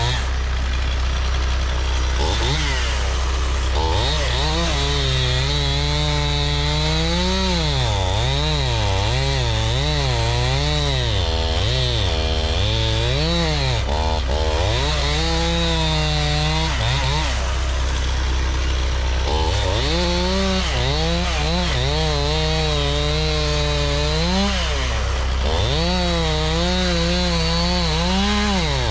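STIHL two-stroke chainsaw running at high revs as it cuts through large logs. The engine pitch repeatedly drops as the chain bites into the wood and rises again as the saw is eased off or repositioned.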